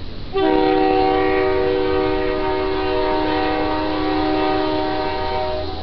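Diesel locomotive air horn sounding one long, loud blast, a chord of several steady notes. It starts suddenly about half a second in and cuts off near the end, over a low steady rumble.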